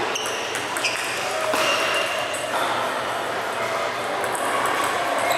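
Table tennis balls clicking off tables and bats, a few sharp pings each with a brief high ring, over a murmur of voices.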